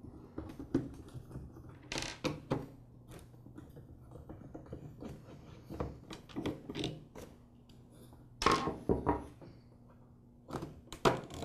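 Screwdriver backing screws out of a plastic string-trimmer handle, with irregular clicks, scrapes and small knocks as the tool and parts are handled. The loudest knocks come about two-thirds of the way through.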